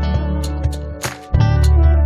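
Instrumental background music with sustained bass notes and a regular percussive beat; the bass drops out for a moment about a second in, then comes back.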